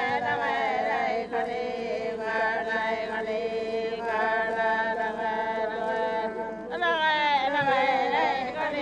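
Several voices singing an Aboriginal ceremonial chant together in long, held, wavering notes. A new phrase starts with a glide near the end.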